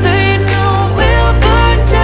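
Background pop music with a steady beat and held bass notes, the bass shifting to a new note about a second in.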